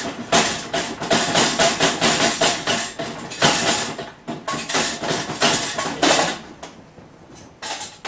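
Clattering, knocking and scraping on a small electric popcorn machine's pot as popcorn stuck inside is worked loose, a dense run of knocks and rattles that eases about six seconds in, with a few more knocks near the end.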